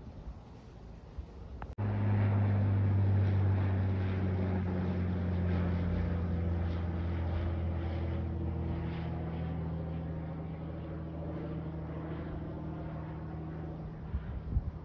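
Small propeller plane flying overhead: a steady low engine drone that comes in abruptly about two seconds in and slowly fades as the plane moves away.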